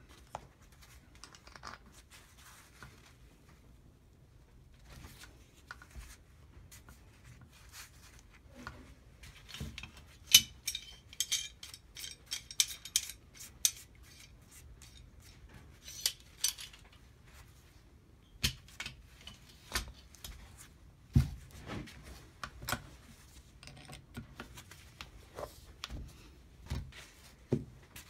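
Scattered metallic clicks, clinks and small knocks of hand tools and parts being handled on a workbench, as an Allen key works the hex screw inside a hydraulic joystick pilot valve. Sparse at first, with a run of crisp clicks past the middle and a few heavier knocks later.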